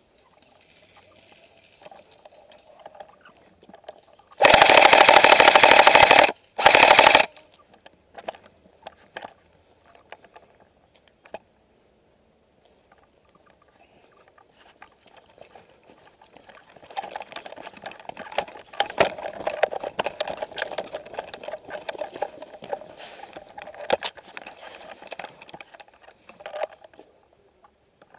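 Airsoft gun firing on full auto: a long rapid burst about four and a half seconds in, then a second short burst. Later come quieter scattered clicks and rustling.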